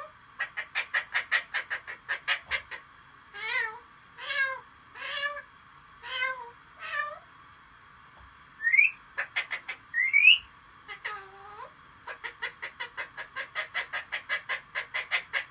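Parrot mimicking other animals and whistles: a fast run of clucking like a hen, then a string of five cat-like meows, two sharp rising whistles with more clucks between them, another meow, and a long run of rapid clucking to finish.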